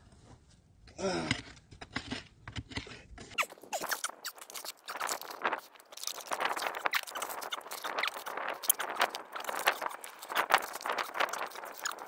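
Dry, crumbly dirt and small stones being dug and scraped out of a hole by hand: a dense run of irregular crunching and scraping that starts about three and a half seconds in.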